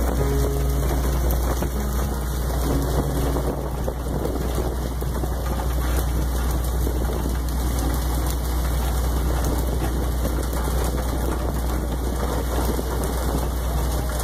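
Steady rain-like hiss of water spray and splashing on a fishing boat at sea, over the constant low drone of the boat's engine.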